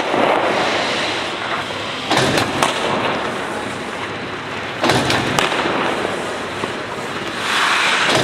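Hockey practice shots in an ice rink: sharp cracks of sticks hitting pucks and pucks striking the goalie's pads, stick or boards, echoing in the arena. They come twice as pairs about half a second apart, a few seconds apart, with a scraping hiss near the end.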